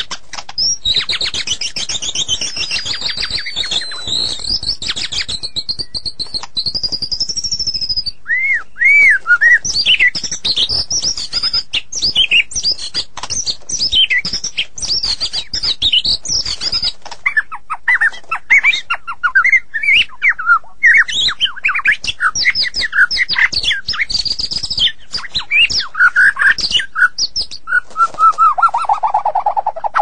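White-rumped shama singing a long, varied song: rapid trills and high whistled glides, then a run of short quick notes, and a lower falling phrase near the end. A dense clicking runs under the song.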